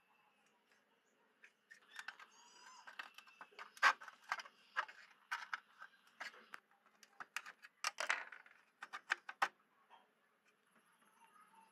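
Sharp clicks and light taps of hands handling an old PC speaker's plastic housing and perforated metal grille, with tweezers working at the grille's edge; the clicks come in an irregular run, loudest about four seconds in, and stop a couple of seconds before the end.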